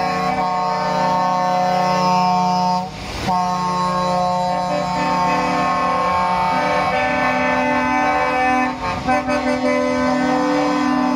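Truck air horns sounding in long held blasts of several notes at once, with a short break about three seconds in and the lower notes changing pitch later on.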